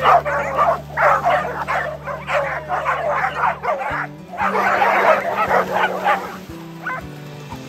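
A pack of dogs barking over one another, many at once, with a short break about four seconds in and fewer barks near the end.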